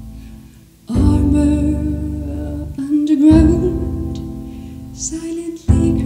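Music: a slow song with chords struck about every two and a half seconds and left to fade, and a wordless sung melody over them.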